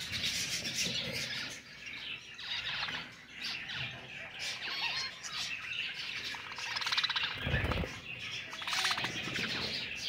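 A cage of fallow budgerigars chattering: many short chirps and warbles, with a rapid rasping trill about seven seconds in. A brief low thump comes just after the trill.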